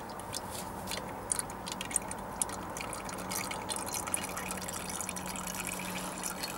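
Compressor oil draining from a refrigeration compressor's pipe stub into a plastic jug: a thin stream dribbling and dripping with many irregular small ticks.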